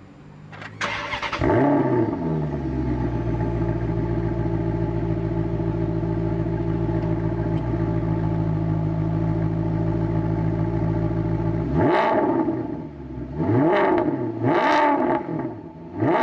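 Maserati GranTurismo V8 starting up with a short rev flare about a second in, then idling steadily. Near the end it is revved in a series of sharp throttle blips.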